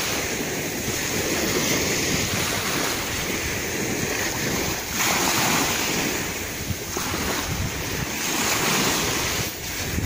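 Gentle sea waves washing in, rising and falling in slow surges every few seconds, with wind blowing on the microphone.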